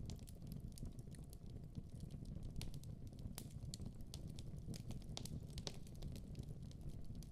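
Firewood burning in a wood-burning stove: irregular sharp crackles and pops, several a second, over a low steady rumble.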